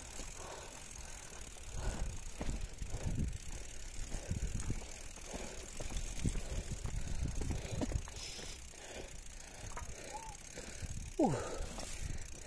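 Mountain bikes being pushed uphill on foot over loose gravel: irregular footstep scuffs and the bikes rattling over stones. Near the end comes a short vocal sound that falls in pitch.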